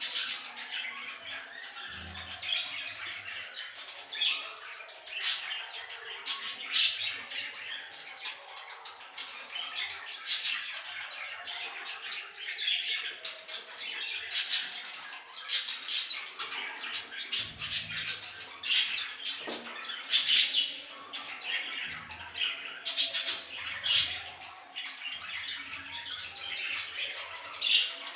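Budgerigars chattering and chirping without pause, with sharper, louder calls standing out every second or two.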